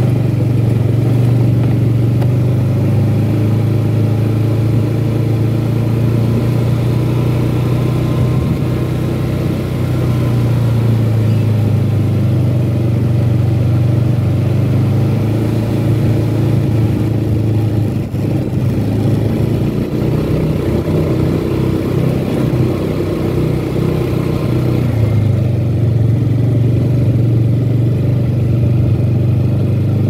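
Yamaha Xeon scooter's single-cylinder four-stroke engine running steadily at low riding speed, heard from the rider's seat, with a short knock about two-thirds of the way through.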